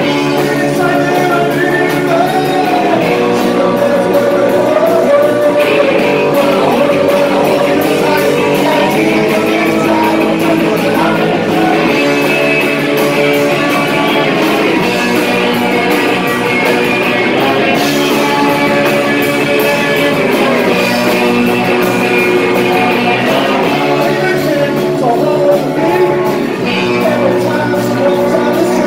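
Live rock band playing electric guitars, bass guitar and drums, loud and steady throughout.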